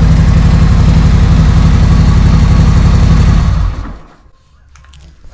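Harley-Davidson V-twin engine breathing through S&S MK45 slip-on mufflers, running loud and steady with an even pulsing beat. It stops about three and a half seconds in.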